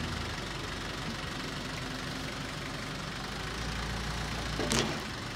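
Tractor engine running steadily while working its front loader, its low hum getting heavier about three and a half seconds in. A short, sharp noise cuts in near the end.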